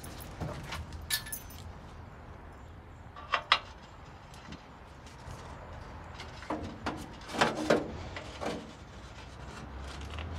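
Scattered metal clinks, taps and rubbing of a wrench and an oxygen sensor as the sensor is threaded back into a car's exhaust pipe, with two sharp clicks about three and a half seconds in and a cluster of knocks around seven to eight seconds. A steady low hum runs underneath.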